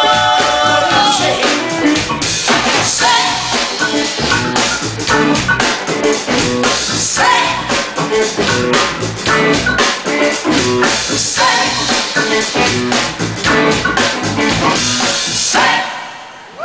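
Band music with a drum kit, guitar and a singing voice, fading out just before the end.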